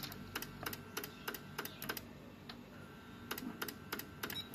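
Faint, regular clicking, about three clicks a second, from the motorized flip-up front panel mechanism of a Victor UX-Z11WMD mini MD/CD stereo. The panel won't rise all the way; the seller thinks it needs a push by hand, as if the gear slips.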